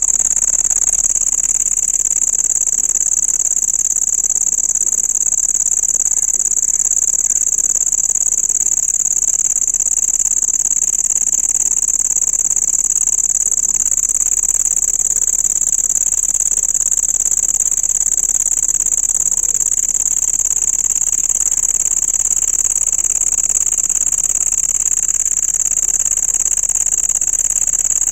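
A cricket calling up close: one loud, continuous, high-pitched trill that holds steady without a break.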